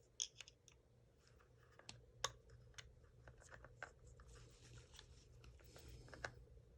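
Faint, scattered clicks and light scraping of small parts being handled as an airsoft rifle is taken apart, with a few sharper ticks.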